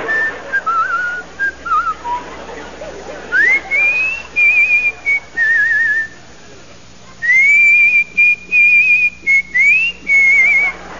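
A person whistling a tune: single clear notes with warbling trills and quick upward slides, broken by short gaps, with a pause of about a second just past the middle.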